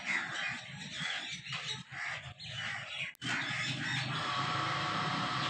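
Birds calling repeatedly in short bursts. About three seconds in, a steady hum takes over.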